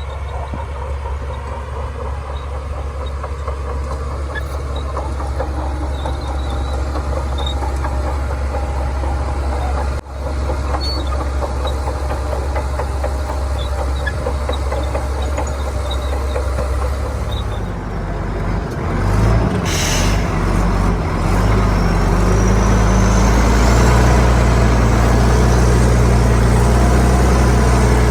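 Shantui bulldozer's diesel engine running with a steady low drone; about two-thirds of the way in it revs up and grows louder, with a faint high whine above it.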